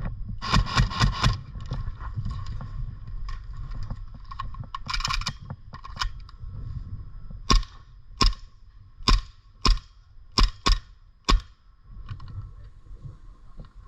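Airsoft gun firing: a quick run of four shots about half a second in, then seven single sharp pops at uneven spacing in the second half.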